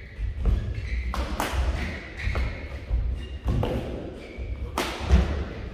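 Badminton rally: several sharp racket strikes on the shuttlecock, the loudest near the end, over the dull thuds of players' footsteps on the court.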